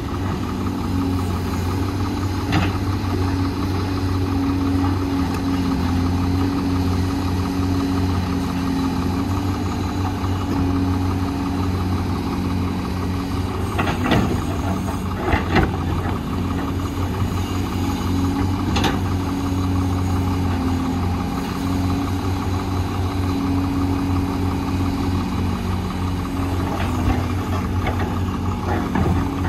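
Doosan DX300 excavator's diesel engine running steadily under load while digging and swinging, its note stepping up and down a little as the hydraulics work. A few sharp knocks, mostly about halfway through, as the bucket dumps soil and rocks into a dump truck's steel bed.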